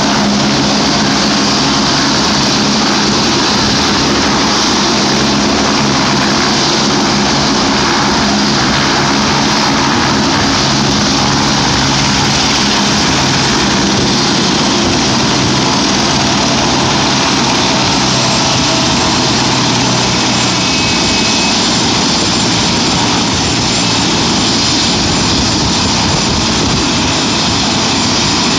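Helicopter running on the ground after landing, its turbine engine and turning rotor making a loud, steady noise. A low steady hum in it fades out about two-thirds of the way through.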